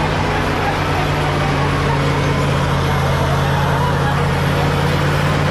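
Caterpillar D7G bulldozer's six-cylinder diesel engine running steadily at a constant speed.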